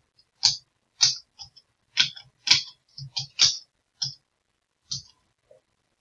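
Computer keyboard keystrokes: about a dozen irregular clicks as code is typed, sparser near the end.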